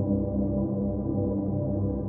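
Dark ambient music: low, sustained synthesizer drones with no beat.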